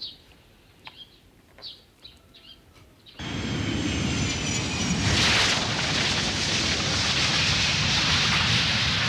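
Birds chirping softly. About three seconds in, a sudden cut to a twin-engine jet airliner landing: loud, steady jet engine noise with a high whine that falls slightly in pitch.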